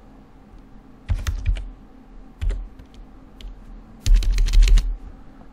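Typing on a computer keyboard: a few short runs of keystrokes, then a quick flurry of keystrokes about four seconds in.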